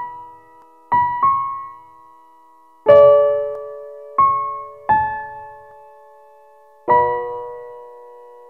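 Slow, sparse piano music: single notes and chords struck every second or two, each left to ring and fade, with the fullest chord about three seconds in.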